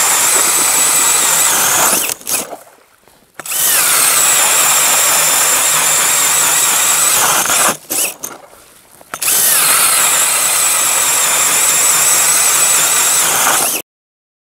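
DeWalt DCD996 cordless drill driving an 8-inch KDrill ice auger through ice: a steady high-pitched motor whine over the grinding of the auger blades. It drops away twice for about a second and cuts off abruptly near the end.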